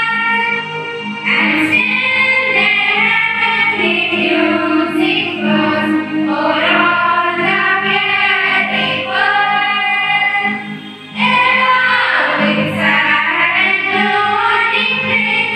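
A group of girls singing a Christmas carol together, their voices held and gliding between notes, with a brief break between phrases about eleven seconds in.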